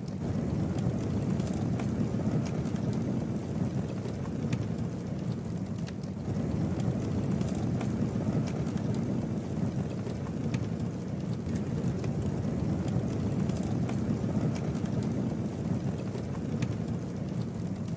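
Campfire burning, with a steady low rumble and scattered sharp crackles and pops from the wood.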